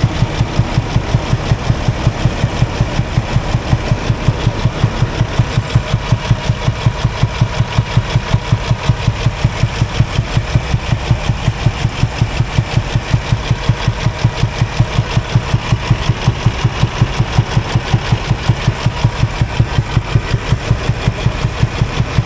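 Semi truck diesel engine idling under an open hood with a rapid, even thump, thump, thump from the engine bay, like an exhaust leak's poof, poof. The owner traced the thumping to a failing air compressor.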